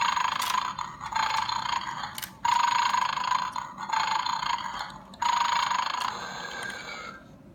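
Battery-powered toy dog from the Beware of the Dog game snoring through its small speaker while it sleeps, a looped snore repeating about every one and a half seconds and fading toward the end.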